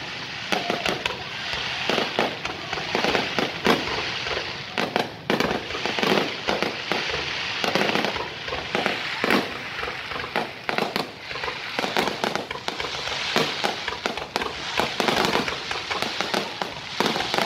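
Aerial fireworks display: shells bursting overhead in a dense run of bangs at uneven intervals, with a continuous hiss of noise between them.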